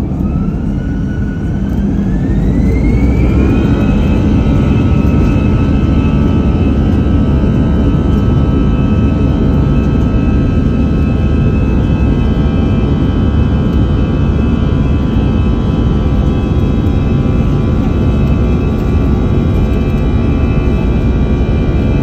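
Jet airliner's engines spooling up to takeoff power, heard from inside the cabin: a whine rising in pitch over the first few seconds, then a steady engine drone over the deep rumble of the takeoff roll.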